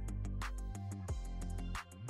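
Background music with a steady beat over a deep bass line.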